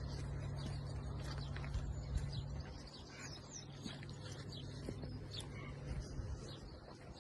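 Small birds chirping and calling with many short, high notes, over a low steady rumble that fades about three seconds in.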